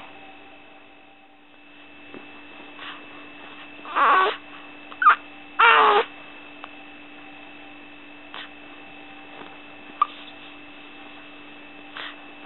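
A six-to-eight-week-old baby makes short, squeaky pitched noises, three of them close together about a third of the way in, with fainter ones in between. These are the suspect noises that the parent asks about as possible stridor. A steady electrical hum runs underneath.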